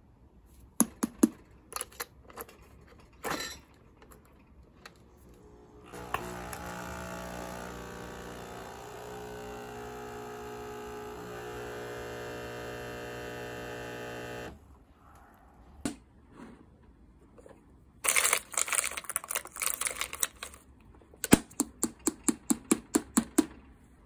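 Nespresso Essenza Mini capsule coffee machine's pump humming steadily for about eight seconds as it brews into a cup, then cutting off abruptly. It is preceded by a few sharp clicks. Near the end, metal coffee capsules clatter and clink rapidly in a clear acrylic box as they are picked through.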